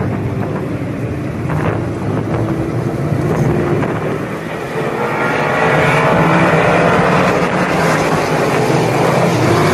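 Street stock race cars' engines running on a dirt oval, a steady low drone that grows louder about halfway through.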